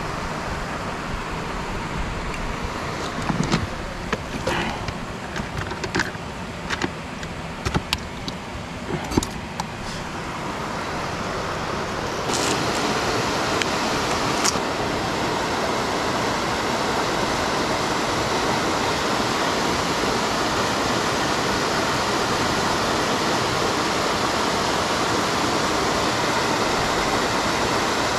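A steady low rumble with scattered sharp clicks and knocks for the first twelve seconds or so; then the sound changes to a steady rush of water running down a concrete dam wall into the pool below.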